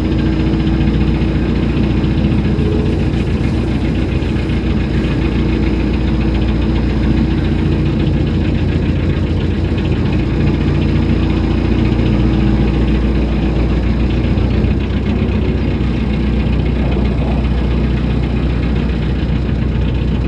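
Narrowboat's diesel engine running steadily under way, a constant low chugging with no change in speed.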